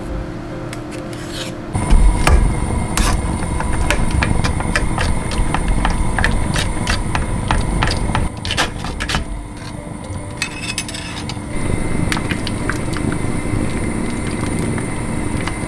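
A metal spoon scrapes and clicks against a stainless steel mesh strainer, pressing miso paste through it into a pot of simmering soup. The clicks come many times a second over a steady hum. Before this, about the first two seconds are quieter scraping as the spoon scoops the miso paste from its plastic tub.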